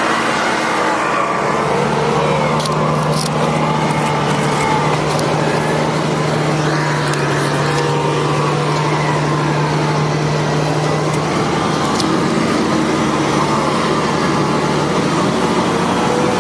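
Off-road 4x4 engine running, its pitch rising and falling gently now and then over a steady low hum.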